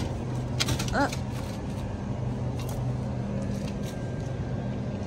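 Steady low hum of the store's background, with a few light clicks and rustles as a plastic-wrapped cucumber is handled, and a short voice sound about a second in.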